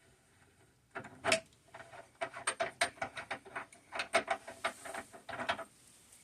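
Quick, irregular clicks and knocks of hard plumbing parts being handled and worked by hand. They start about a second in and stop shortly before the end.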